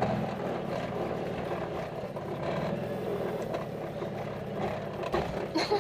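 Small car's engine running, heard from inside the cabin as the car drives over a sandy dune track, with road and body noise and a few knocks near the end.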